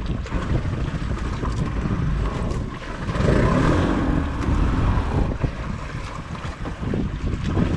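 Wind buffeting the microphone over choppy sea, with water sloshing against the hull of a small outrigger boat; a louder rush of water swells about three seconds in.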